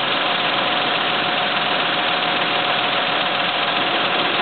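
Truck's diesel engine running steadily at constant speed, driving the hydraulics of its truck-mounted crane during a lift.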